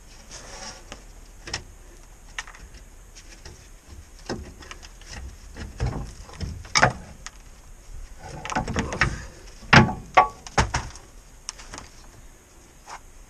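Irregular knocks, clunks and scraping of hands and tools working in the front coil spring seat of a Chevy P30 truck chassis, freeing something caked in road grime. The loudest knocks come in a cluster about ten seconds in.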